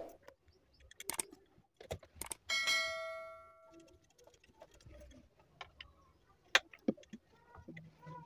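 Small tools and a replacement amplifier IC being handled on a workbench: scattered light clicks and taps, with one small metal clink about two and a half seconds in that rings for about a second.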